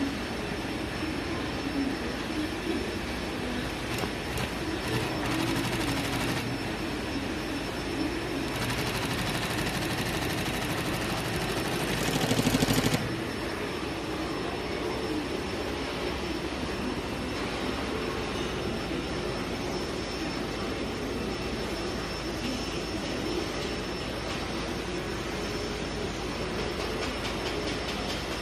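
Industrial butted-seam sewing machine stitching two fabric edges together edge to edge: a fast, even machine chatter that grows louder and stops abruptly about thirteen seconds in, followed by a steady background hum.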